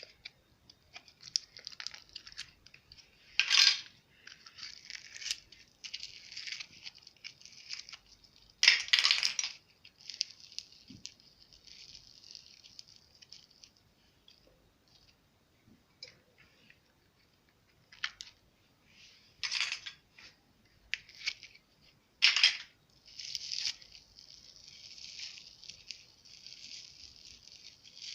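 Slime being squished, stretched and folded by hand, giving a steady wet crackling with four louder snaps spread through it.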